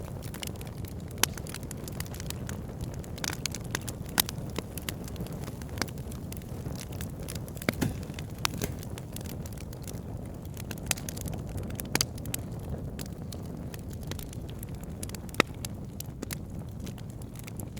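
Campfire crackling: a steady low rumble of the flames with irregular sharp pops and snaps of burning wood.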